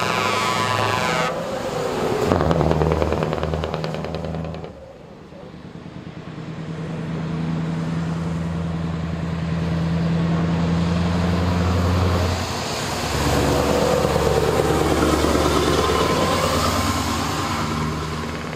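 Heavy show trucks with open exhaust pipes drive past one after another, their diesel engines giving a deep, steady exhaust note that swells loud as each one goes by, twice. A horn sounds with several tones for about the first second.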